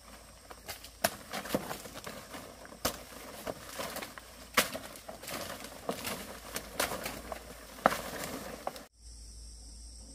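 Leaves rustling with irregular sharp snaps, as dong leaves are picked and their stems broken off by hand in undergrowth. About nine seconds in this cuts off abruptly and a steady high chirring of insects takes over.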